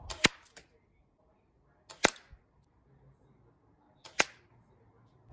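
0.45 g airsoft BBs from a Novritsch SSG10 sniper rifle hitting a paper target three times, about two seconds apart. Each hit is a sharp snap with a fainter click just before it.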